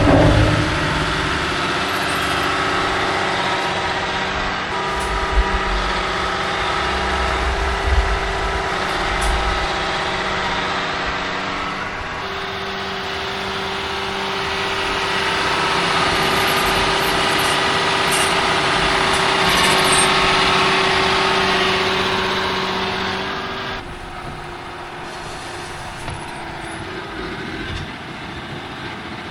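Heavy diesel engine running steadily under load. Its sound changes abruptly about twelve seconds in and again near the end, dropping quieter for the last few seconds.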